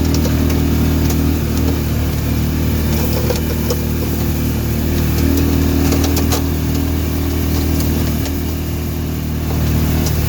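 Side-by-side UTV engine running steadily while driving, with scattered clicks and rattles.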